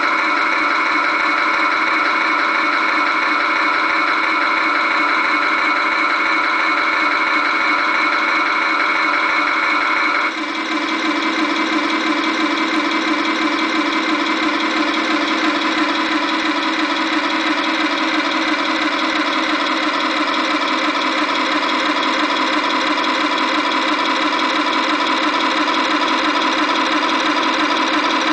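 Simulated tank engine idling, played through the onboard speaker of a Tamiya Tiger I RC model tank's sound unit: a steady, evenly pulsing engine sound with no deep bass. About ten seconds in the level dips briefly and a higher part of the sound drops away, after which it idles on steadily.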